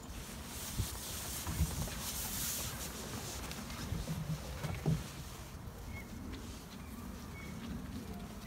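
Puppies scampering on wooden deck boards around a fabric play tunnel: paws pattering on the boards and brushing the tunnel, with a few soft thumps, the loudest about a second and a half and five seconds in.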